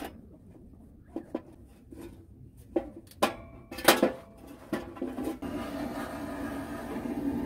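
Metallic clanks and knocks from a small steel box wood stove as its door and parts are handled with gloved hands, several separate strikes with the loudest about four seconds in.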